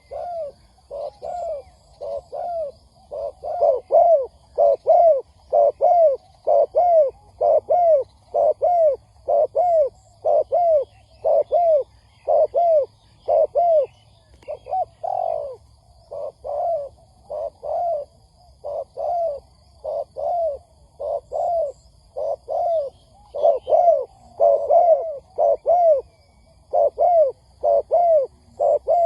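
Spotted dove cooing in a rapid series of arched coo notes, about two a second, in runs with short pauses. This is a ground decoy dove's call, used to draw in wild doves. Faint chirps of small birds are heard behind it.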